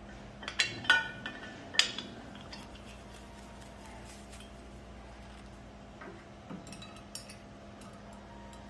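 Metal clinks and taps from a brass hose fitting being handled and threaded onto the valve of a yellow MAPP gas cylinder: three sharp clinks in the first two seconds, then a few lighter clicks a little past the middle.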